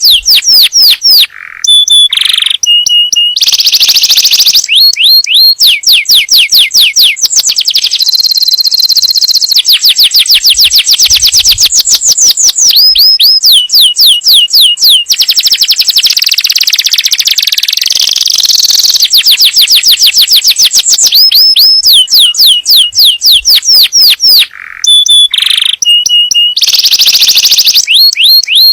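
Domestic canary singing a long, loud song of fast trills: rapid runs of repeated notes, some rising, some buzzy. The same run of phrases from the start comes round again near the end.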